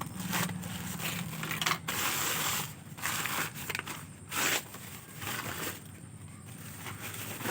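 Several short bursts of crinkling and rustling from packaging material being handled, with short gaps between them.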